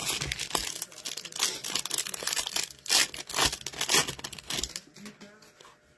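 Foil wrapper of a hockey card pack crinkling and tearing as it is taken from the box and ripped open by hand. The rustling runs in quick uneven crackles and stops about five seconds in.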